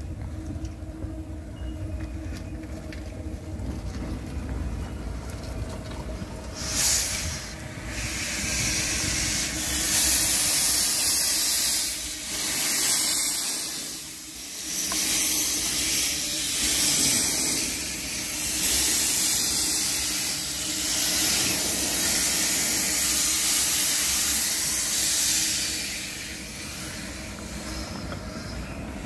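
1889 Baldwin 2 ft gauge steam locomotive venting steam: a low rumble at first, then a sudden sharp hiss about seven seconds in and loud hissing of steam that rises and falls every second or two, dying back near the end.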